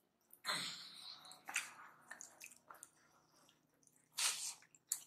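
Wet, squishy sounds of fingers mixing rice with lentil dal on a plate, and of chewing, with a short slurp about four seconds in as a handful goes into the mouth.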